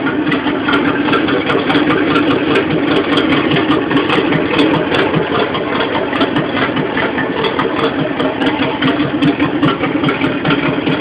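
Car engine idling steadily, a continuous rough rumble with no revving.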